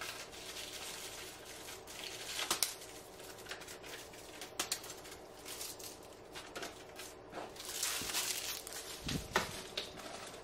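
Plastic packaging rustling and crinkling, with scattered light knocks and clicks as groceries and candy are handled and put away.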